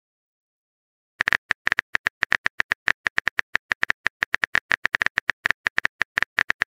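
Rapid keyboard-tapping sound effect from a Texting Story chat animation, a fast train of short clicks that starts about a second in, as a message is typed letter by letter.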